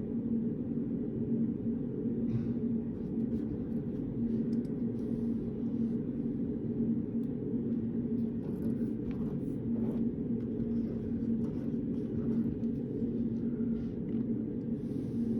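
Steady low hum of a small study room, with one even tone inside it, its level unchanging. A few faint light clicks, such as a pen or paper on a desk, come and go.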